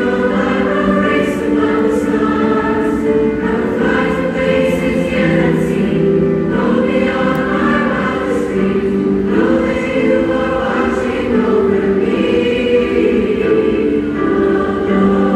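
A choir of many voices singing a slow song together, with long held notes.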